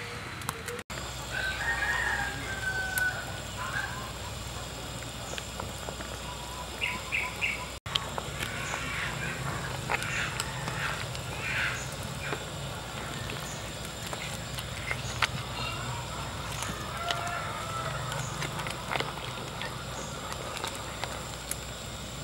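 Chickens: a rooster crows about two seconds in, and short clucking calls follow in the middle. Underneath there is a steady low rumble with occasional light clicks.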